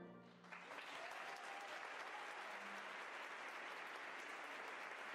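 Faint crowd applause: a steady round of many hands clapping that starts about half a second in, as a music bed fades out.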